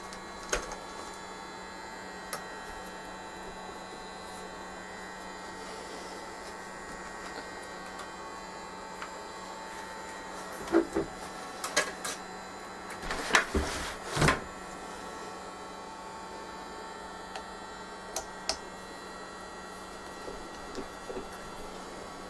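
Scattered small metallic clicks and rattles of a hex driver and screws being worked out of an RC helicopter's carbon-fibre frame, with a busier cluster of knocks about 11 to 14 seconds in, over a steady electrical hum.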